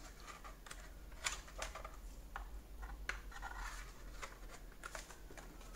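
Faint, scattered clicks and brief rubbing as a plastic keyboard and its USB cable are handled and plugged in.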